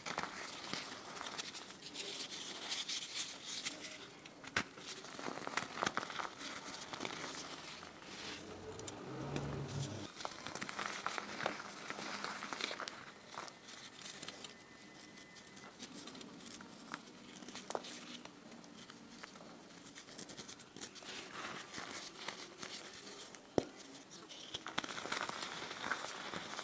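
Soft, lightly crusted reformed gym chalk dyed green being crushed by hand: irregular crumbly crackling and crunching as pieces break between the fingers and crumbs sift down through the hands, with a few sharp clicks.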